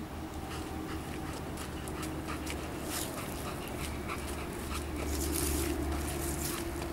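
Dog panting in quick breaths while heeling closely, over a steady low hum.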